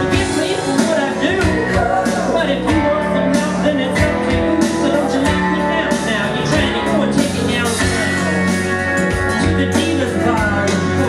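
Country-rock song with guitar and band backing, and a singer's voice through a microphone.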